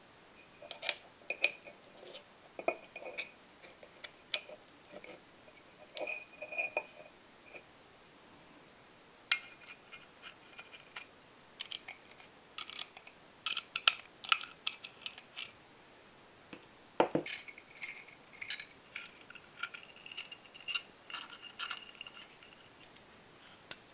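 Small metal clicks and clinks in irregular clusters, some with a brief ring: the metal parts and tiny screws of a V-twin engine model kit being handled and screwed in, with one sharper knock about two-thirds of the way through.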